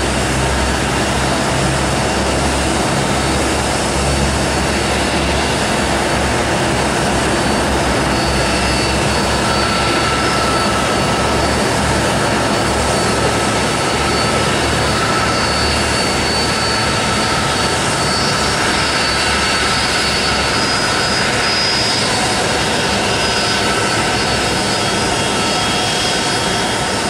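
Airbus A330's twin jet engines running at taxi power: a steady rush of jet noise with thin, steady high whines over a low rumble.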